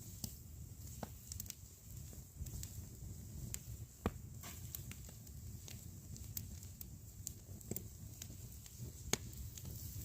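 Wood campfire crackling: irregular sharp pops and snaps, the loudest about four seconds in and again near the end, over a low rumble.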